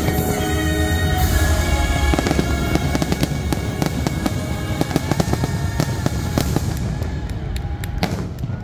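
Fireworks finale: rapid crackling and bangs from bursting shells and crackling comets, over the show's music, which thins out near the end.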